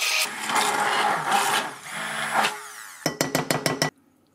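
Silvercrest SSMS 600 W hand blender running on turbo, puréeing apples and pears in a glass bowl; its sound shifts and fades over the first couple of seconds. Near the end comes a quick run of about eight sharp, ringing taps that cuts off suddenly.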